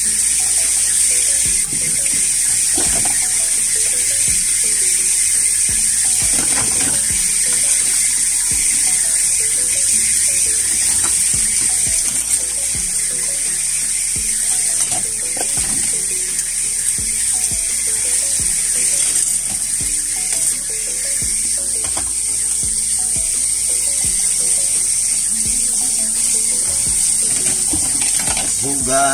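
Tap water running steadily into a sink while dishes are washed, with a few short knocks of dishes against each other or the basin.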